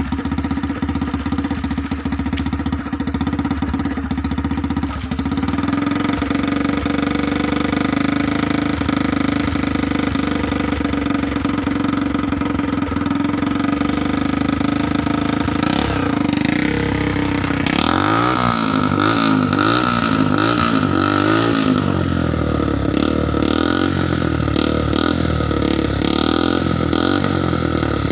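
Motorcycle engine running on the move, steady at first. About two-thirds of the way through, the engine note rises and falls several times with throttle changes, then settles at a higher steady pitch.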